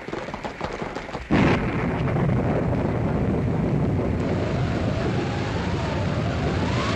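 Radio-drama sound effect: a patter of rapid clicks, then, about a second in, a sudden loud, steady rumble like a thundering stampede, with a faint rising-and-falling wail in it near the end.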